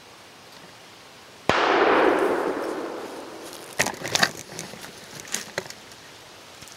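A single close gunshot about a second and a half in, its report rolling away over a couple of seconds. Then a few sharp clicks and cracks.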